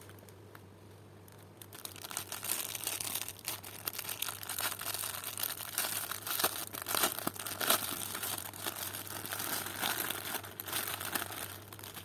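Thin clear plastic packaging being crinkled and pulled about by hand. It is a dense crackle that starts about two seconds in and goes on until just before the end.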